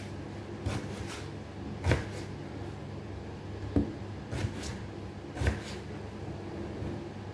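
Kitchen knife cutting through raw peeled potatoes on a plastic cutting board, the blade knocking on the board about half a dozen times at uneven intervals, over a steady low hum.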